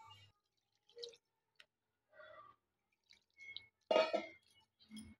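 A hand mixing thick gram flour and rice flour batter with water in a steel bowl: a few scattered wet squelches, the loudest about four seconds in.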